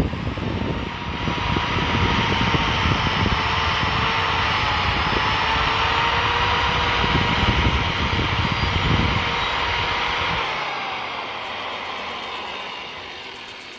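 Angle grinder fitted with a wood-carving disc running and grinding down a goat's hoof: a steady motor whine with gritty scraping. About ten seconds in the grinding stops and the grinder winds down.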